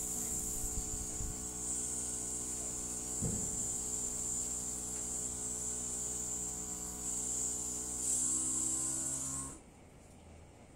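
Makeup airbrush spraying with a steady high hiss over the hum of its small electric compressor motor; both stop suddenly near the end.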